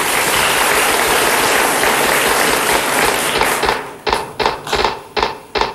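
Studio audience applauding, a dense patter of clapping that thins out in the last two seconds into a few scattered separate claps.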